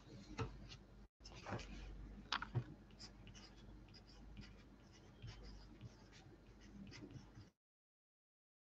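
Pencil writing on paper in a workbook: faint scratching strokes with small taps of the lead, broken by a short dropout about a second in and cutting to dead silence over a second before the end.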